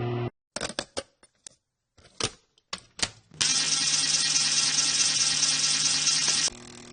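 VHS playback sound effect: a run of sharp mechanical clicks and clunks, as of a VCR loading and engaging a tape, then a loud, steady tape hiss over a low hum. The hiss cuts off suddenly near the end, leaving a quieter hum.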